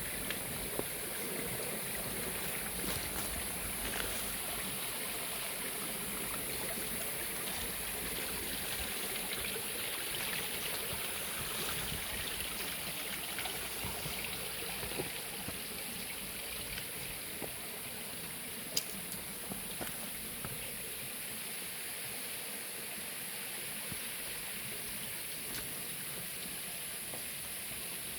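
Steady outdoor ambience: an even rushing noise with a constant high-pitched hiss above it and a few faint scattered ticks, one sharper tick about two-thirds of the way through.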